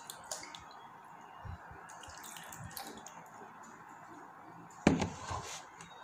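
Water dripping and splashing lightly into a plastic tub, with one sudden louder sound about five seconds in.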